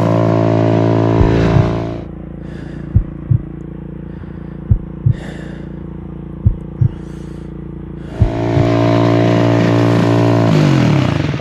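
Dirt bike engine running under throttle, then eased off for several seconds while sharp knocks ring out as the bike rides over rough ground. It is opened up again, then near the end the engine note falls away quickly as the front wheel washes out in a crash.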